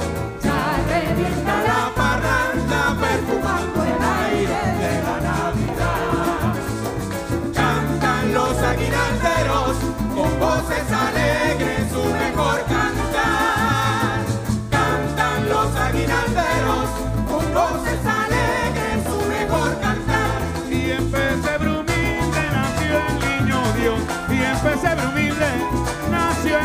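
Live Zulian gaita band playing an instrumental passage, with electric bass, electric guitar and congas over a steady beat.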